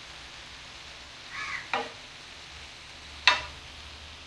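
Cubed liver frying in oil on a tawa sizzles steadily while a spatula stirs it. The spatula strikes the pan sharply twice, the second strike louder, about three seconds in. A crow caws once about a second and a half in.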